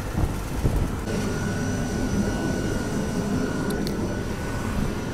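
Moving passenger train heard from its open door: a steady rumble of wheels on the rails, with a thin steady high whine through most of it and a short tick near the end.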